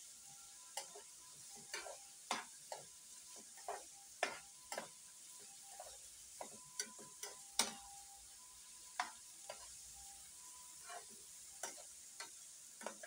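Slotted metal spatula scraping and tapping against a frying pan at an irregular pace, about one or two knocks a second, as diced chayote with onion and garlic is stir-fried. A light steady sizzle of the sauté runs underneath.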